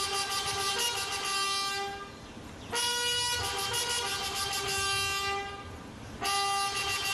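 Long, steady horn tones, several sounding together, each held about three seconds with short breaks between them.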